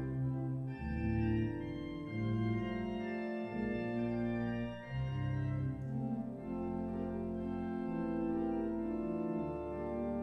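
Church organ playing the closing voluntary after the benediction: slow sustained chords over deep bass notes, the harmony changing every second or so.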